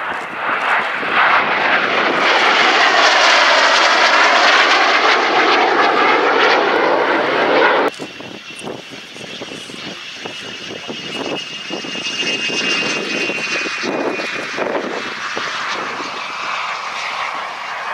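Two BAC jet trainers' Rolls-Royce Viper turbojets passing overhead in a loud formation flypast, the sound sweeping through a shifting, phasing tone. About eight seconds in it cuts sharply to a single jet on the runway, quieter, with a steady high turbine whine.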